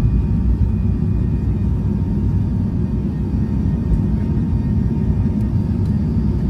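Steady low rumble of a jet airliner rolling on the ground, heard from inside the passenger cabin, with faint steady whines above it.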